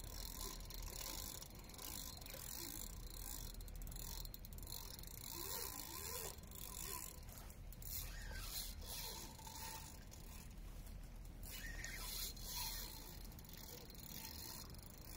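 Spinning reel working during a fight with a big sturgeon: the drag gives line in runs of fine, fast clicking, strongest about four to seven seconds in and again near eleven seconds, as the fish pulls.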